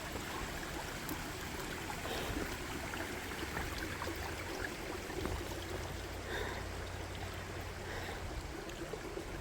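Shallow stream running over rocks at a trail crossing, a steady trickling and gurgling.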